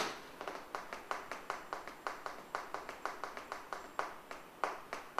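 Burning paper napkin crackling: a run of soft, quick clicks, about four a second, after one sharper click at the start.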